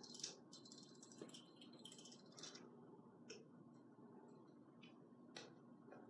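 Faint crinkling and rustling of a small box or its packaging being handled, followed by a few separate light clicks. The sound is thin and distant, played back through a TV speaker.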